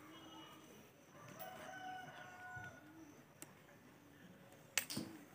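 Rooster crowing faintly, one drawn-out call about a second in. Near the end a single sharp click.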